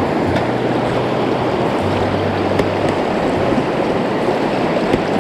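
River water rushing steadily around a wading angler, a loud, even hiss.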